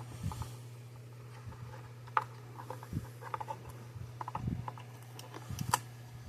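Scattered light clicks and taps, with a few soft thumps, from hands handling a fence energizer's circuit board and plastic case, over a steady low hum. The sharpest click comes near the end.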